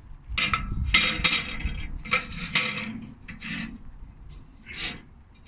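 Heat deflector plates being set into a kamado grill's divide-and-conquer rack, scraping and rubbing against it in a series of short scrapes, with one more scrape near the end.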